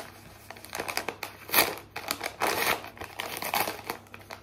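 Yellow padded paper mailing envelope crinkling and rustling as it is handled and opened by hand, in irregular bursts, the loudest about one and a half seconds in and again around two and a half seconds in.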